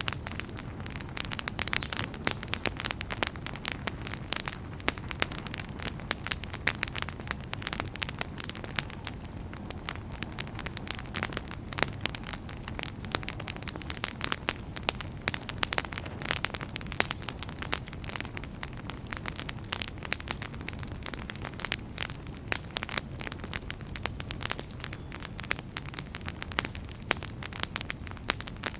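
Wood fire burning in a fireplace: dense, irregular crackles and pops over a steady low rumble of the flames.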